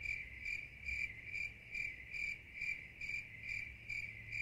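Cricket chirping sound effect: a high chirp repeating steadily a little over twice a second. It is dubbed in as the classic 'crickets' gag for an awkward silence after an unanswered question.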